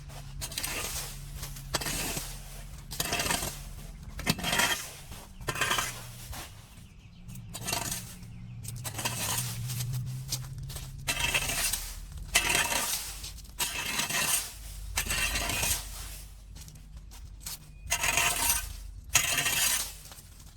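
A metal tool scraping and clinking against a hard surface, in repeated strokes about once a second, as debris is raked out of a blocked drain.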